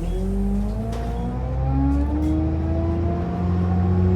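Optare Versa single-deck bus heard from on board, its engine and drivetrain pulling as the bus gathers speed: a whine that rises in pitch, steps about two seconds in, then keeps climbing.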